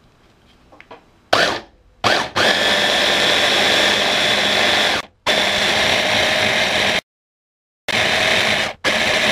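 Electric blender with a chopper bowl whirring as its blades purée sprouted wheat with peaches and syrup. It gives two short pulses, then runs steadily for a few seconds at a time, stopping and starting again several times.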